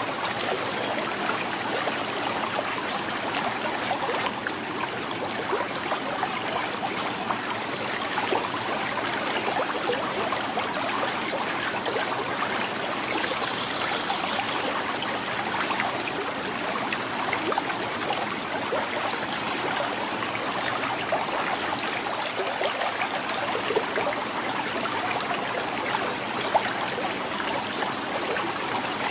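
Shallow river flowing and gurgling over stones, a steady rush of water with many small splashes and trickles.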